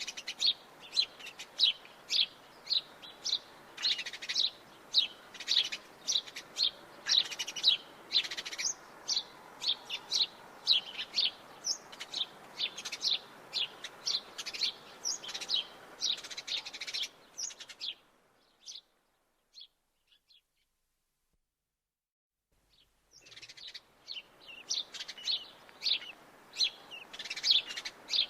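House sparrows chirping, a fast run of short, repeated chirps. The chirping stops about two-thirds of the way in, leaving a few seconds of near silence with only a few faint chirps, then starts again.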